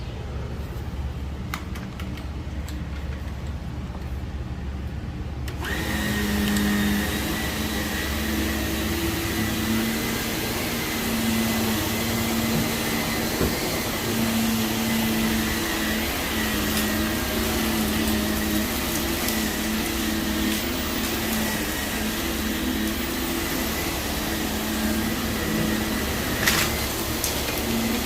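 Bagless vacuum cleaner switched on about six seconds in, then running steadily over heavily soiled carpet with a rushing sound and a steady high whine. Before it starts there is only a low hum with a few clicks; a sharp knock comes near the end.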